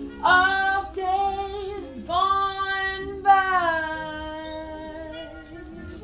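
A woman singing in a high voice, three phrases with long wavering held notes, the last one sliding down, over quieter backing music.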